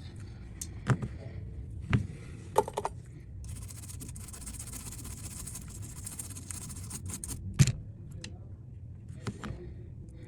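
Small clicks and taps of tools and phone parts being handled on a workbench, with a few seconds of steady hiss in the middle and one sharper click near the end.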